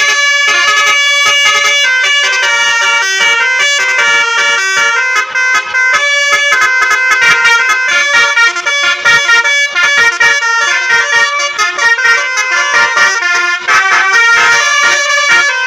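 Basuri telolet musical bus horns playing melodies note by note, loud and without a break, with several horns sounding tunes over each other in a horn battle.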